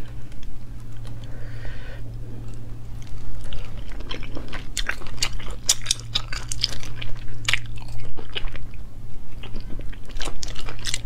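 Close-miked eating of sea snails: wet chewing and smacking mouth clicks, thicker in the second half, over a steady low hum.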